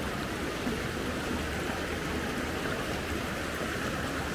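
Steady rushing of a clear forest river flowing.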